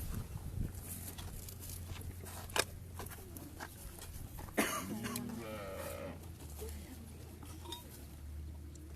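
A young calf bawls once, about five seconds in, with a wavering pitch. A couple of sharp knocks come before it, over a steady low hum.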